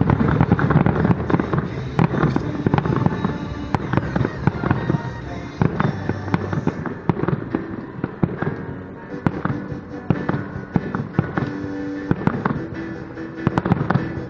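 Aerial fireworks shells bursting in a rapid series of bangs and crackles, thickest at first, thinning out about halfway and picking up again near the end, with music playing alongside.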